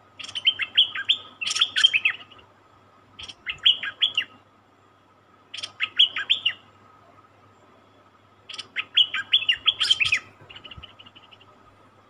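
Stripe-throated bulbul singing: four short bursts of rapid, chirping notes a second or two apart, then softer chirps near the end.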